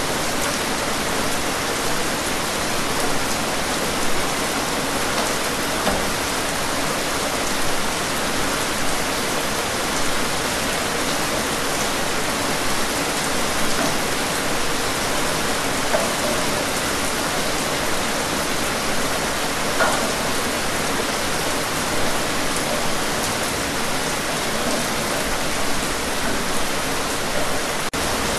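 Steady rain, an even hiss with a few louder drop taps now and then.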